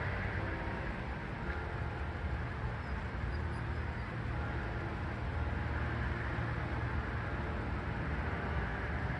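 Steady low outdoor rumble with no clear single event.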